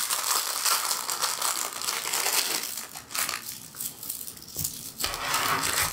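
Small clear plastic packet crinkling as a beaded bracelet is worked out of it, with small clicks and rustles, dying down after about three seconds.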